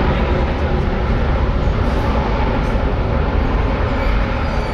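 Airbus A330-243's Rolls-Royce Trent 700 turbofans running as the airliner rolls along the runway: a steady, loud noise, heaviest in the deep low end.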